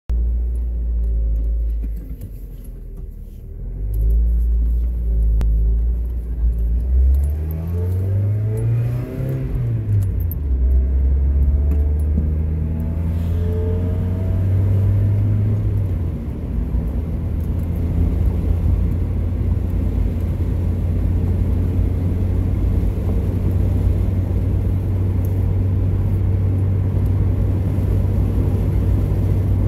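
Car engine and road noise heard from inside the cabin while driving. The engine pitch rises about eight seconds in, falls back about two seconds later, then runs steady.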